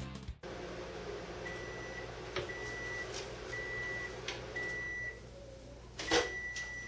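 Over-the-range convection microwave oven running with a steady hum while it beeps four times, about a second apart. The hum stops about 5 s in, a clunk follows, and a longer beep of the same pitch starts near the end.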